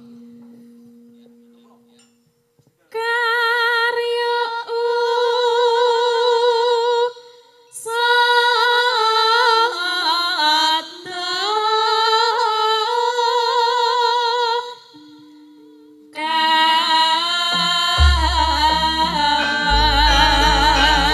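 Javanese sinden (female gamelan singers) singing a slow, drawn-out melody with a wavering vibrato, in long phrases with short breaths between them, starting about three seconds in. About 18 seconds in, deep low gamelan strokes come in beneath the voices.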